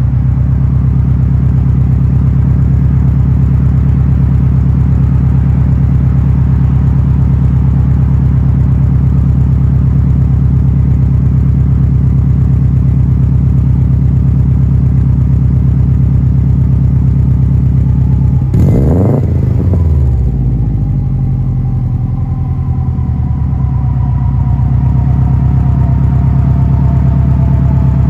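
Car exhaust idling steadily through an Xforce 2.5-inch pipe and straight-through oval muffler. About two-thirds through, the engine is revved once quickly, rising and falling in pitch, then it settles back to idle.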